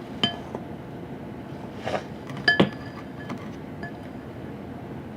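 A fork clinking against a bowl while stirring slime: a few separate ringing clinks, the loudest two in quick succession about halfway through, with a short scrape just before them.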